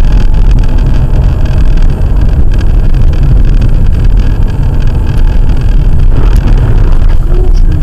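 Loud, steady driving noise of a car, recorded by a dashboard camera inside it: engine, tyres and wind together, deep and even throughout.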